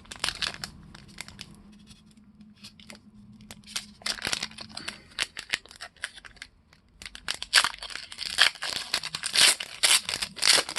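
Foil wrapper of a trading card pack crinkling and tearing as it is opened by hand. It comes in short crackly bursts, busiest over the last three seconds.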